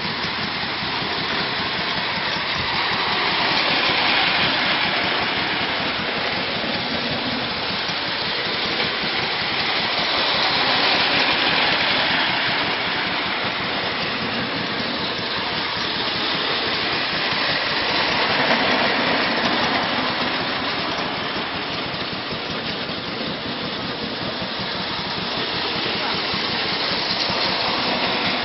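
Tinplate O gauge clockwork train running steadily round its tinplate track. The sound grows louder each time the train comes round close, about every seven seconds.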